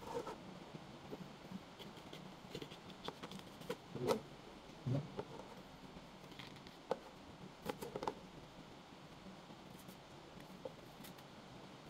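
Small knife cutting up green Cavendish bananas on a plastic board, with scattered short clicks and taps of the blade against the board and banana.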